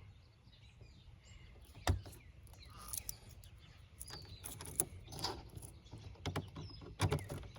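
Birds chirping faintly in the background, with a few sharp clicks and taps from lock parts being handled, the strongest about two seconds in and another pair near the end.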